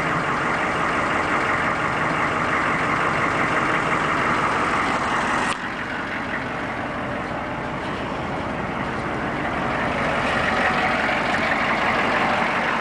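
The 6.5-litre turbo-diesel V8 of a 1997 Chevrolet Silverado 3500HD tow truck idling steadily, with an abrupt break about five seconds in after which it runs on slightly quieter.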